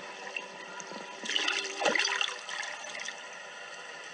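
Water splashing and rushing for about two seconds, starting about a second in. It is most likely churned by the electric fan running in the water.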